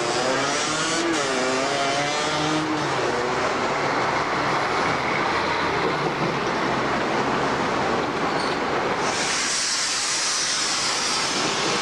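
Busy street traffic with city buses. In the first few seconds a bus engine rises and falls in pitch as the bus pulls away. About nine seconds in, an articulated bus passes close with a loud hiss.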